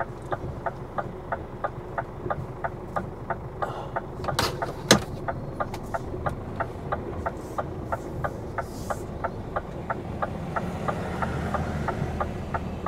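Lorry's diesel engine idling, heard from inside the cab, with a fast, even ticking throughout and a sharp click or two about four and a half seconds in.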